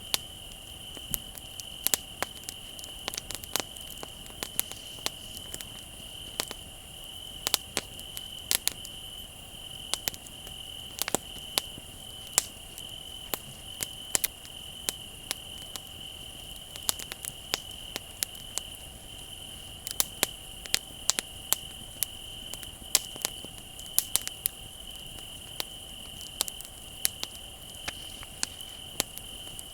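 Wood fire crackling with sharp, irregular pops over a steady high trill of crickets.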